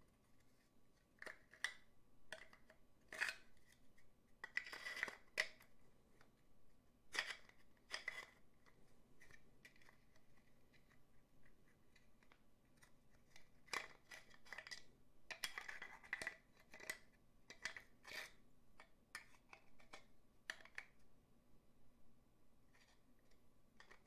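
Faint, irregular scraping, sliding and clicking of a wooden puzzle box and its small key piece being handled and turned over in the hands, with quiet gaps between bursts of handling.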